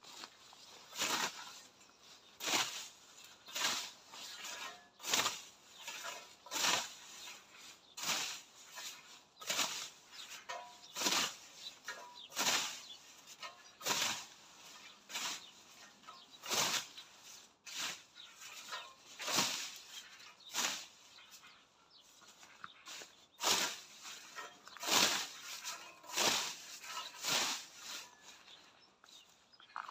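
Hand scythe cutting through thick stinging nettles: a swishing stroke about every one and a half seconds, with a brief pause about two-thirds of the way in.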